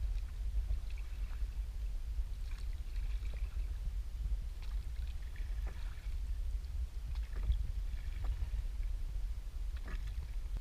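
Oars of a rowed drift boat working in their oarlocks, with scattered short knocks as the blades dip and pull, over a steady low rumble.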